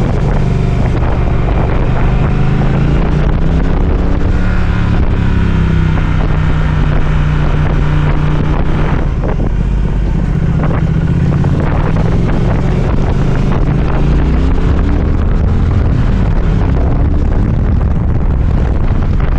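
Triumph Speed Twin 1200's parallel-twin engine running under way, its pitch rising and falling as the rider accelerates and eases off. Wind noise on the microphone throughout.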